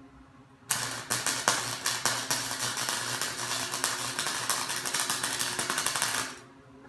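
Electric arc welding on steel: the arc strikes about a second in and runs with a dense, sharp crackle and sputter, then cuts off abruptly near the end. A faint steady hum from the welder sits underneath.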